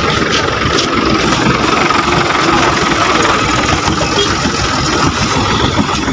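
An engine idling steadily and loudly, with a constant steady hum.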